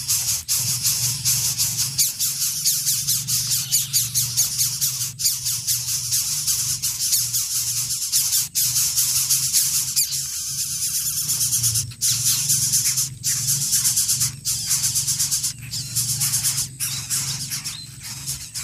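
Greater coucal nestlings begging with a fast, rasping, high-pitched hiss that breaks off briefly a few times, over a steady low hum.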